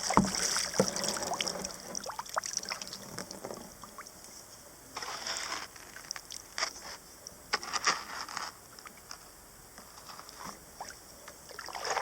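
Kayak being launched back onto the water: the hull scraping and knocking, with water splashing and dripping off the paddle in irregular bursts, busiest in the first few seconds.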